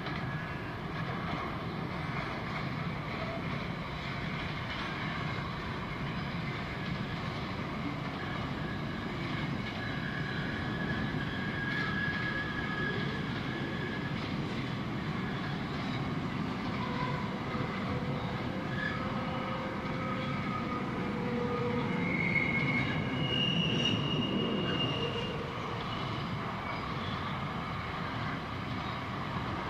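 Freight train wagons rolling past, their steel wheels running steadily over the rails. Brief high-pitched wheel squeals come and go, and the sound grows a little louder about three-quarters of the way through.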